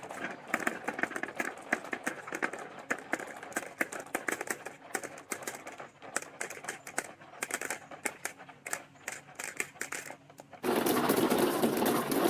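Marbles rolling and clicking along a plastic marble run track, a quick uneven patter of small clicks. Near the end a louder, dense continuous rattle starts suddenly.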